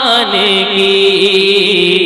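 Male voice singing a naat into a microphone, settling into one long held note over a steady lower hum.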